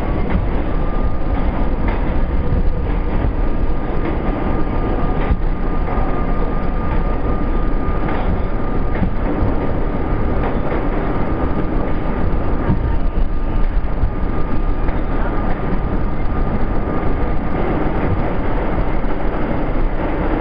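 New York City subway train, an R32 car, running through a tunnel: a steady rumble of wheels on rail with a high whine that rises slightly in the first second and then holds one pitch, and occasional sharp clacks from the track.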